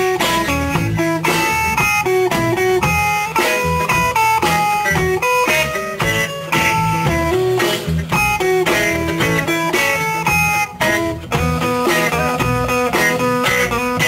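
Live band playing an instrumental passage of a rock song: electric guitars carrying the melody over bass and drums, with no singing.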